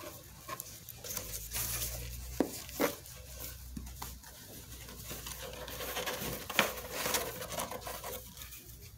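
Hands rummaging in a cardboard box: rustling and scraping of cardboard, with scattered light clicks and knocks.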